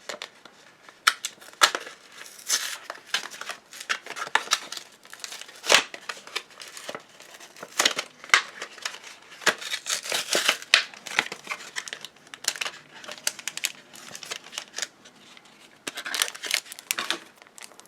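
Foil wrapper of a Yu-Gi-Oh! Spirit Warriors booster pack crinkling and crackling as it is opened and handled, in many sharp bursts that ease off for a stretch near the end.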